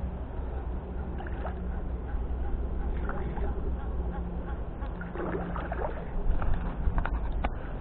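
Steady low rumble of wind on the microphone, with scattered splashing and sloshing of water as a hooked fish is played at the surface, busiest in the second half.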